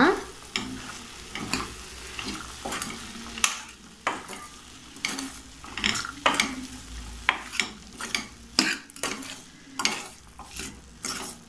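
Steel ladle stirring vegetables and spice powders in a kadai over a low sizzle of frying, with irregular scrapes and knocks of the ladle against the pan.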